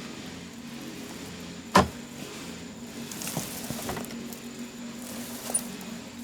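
Repair work on a motorbike: one loud sharp knock about two seconds in, then a few lighter knocks and clicks, over a steady low hum.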